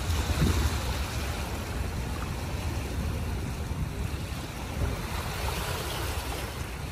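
Sea and wind at the shore: a steady rushing noise of small waves washing against rocks, with a gusty low rumble of wind.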